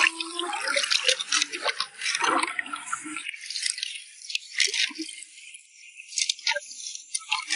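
Shallow river water splashing and sloshing as hands work a turned-over rock and sweep a hand net through the stirred-up water. It is busy for about the first three seconds, then thins to scattered small splashes and drips.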